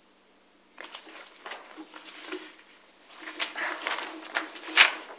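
Sheets of paper being shuffled and handled: a run of dry rustles and crinkles that starts about a second in and grows busier, loudest near the end.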